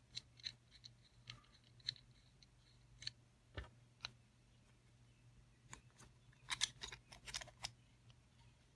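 Faint, scattered clicks and ticks of small parts being handled while the screw is taken off a knife-sharpening kit's vise, with a quick run of clicks near the end.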